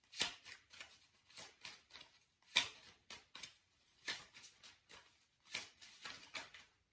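A deck of tarot cards being shuffled and handled: quiet, irregular snaps and rustles of the cards in small clusters.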